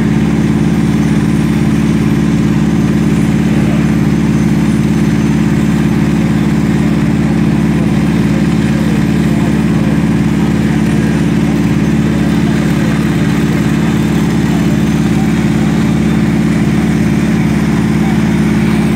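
Fire truck engine running steadily: a loud, constant low drone that does not change.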